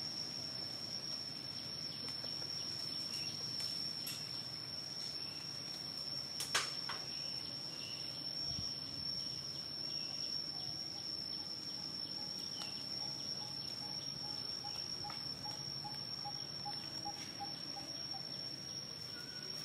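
Steady high-pitched insect drone, like crickets, holding one unbroken tone, over a low outdoor hum. A single sharp click about six and a half seconds in, and a faint run of quick, even ticks in the second half.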